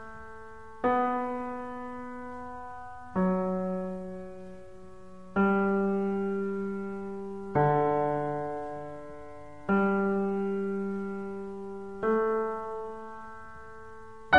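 Slow background piano music: soft chords struck about every two seconds, each left to ring and fade before the next.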